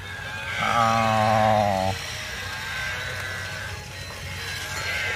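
Battery-operated toy animal playing its recorded animal call: a held, wavering cry about a second in, lasting just over a second.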